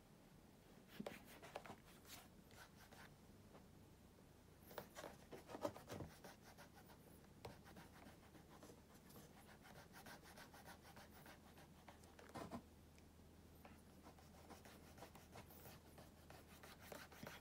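Faint rubbing of fingers working beeswax shoe cream into a black leather oxford, skin sliding on the leather. It comes in a few short spells, the clearest about a second, five seconds and twelve seconds in.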